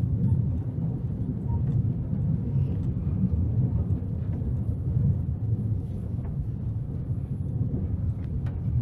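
Low, steady rumble of wind buffeting the microphone over the running noise of an open-top horse-drawn tram on its rails, with a few faint clicks near the end.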